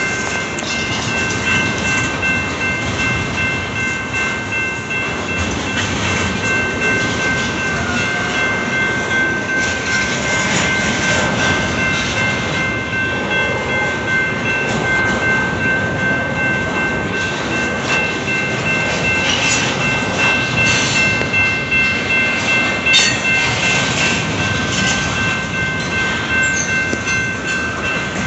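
Double-stack intermodal container train rolling past, its wheels and cars rumbling and clattering on the rails, with a steady high-pitched squeal held throughout and a few sharp clanks in the second half.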